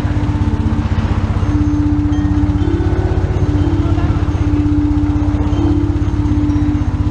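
Big touring motorcycle's engine idling at a standstill, a steady, even, fast low pulse.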